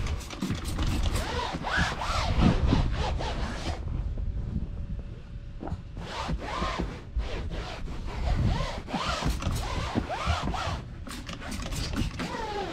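Microfiber towel rubbing and wiping across vinyl boat-seat upholstery, with many short squeaks, along with a few quick spritzes from a trigger spray bottle of vinyl cleaner.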